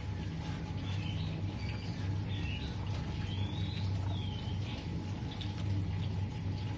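Hands rubbing shampoo lather into a wet cat's fur, over a steady low hum, with short high bird-like chirps scattered through.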